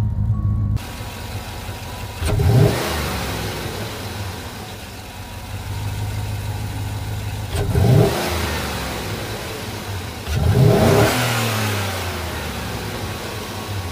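Chevy Tahoe's 5.3-litre V8 idling and blipped three times, each rev climbing quickly and falling back to idle. This is the truck's sound before a throttle body spacer is fitted.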